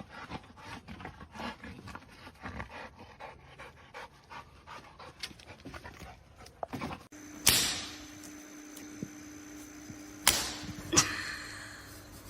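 Dog panting quickly in short, even breaths. About seven seconds in, the sound changes to a steady electrical hum broken by two loud, sudden noisy bursts.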